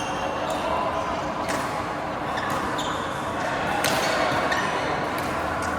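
Badminton rally in a large hall: rackets striking the shuttlecock with sharp clicks about once a second, over steady background chatter.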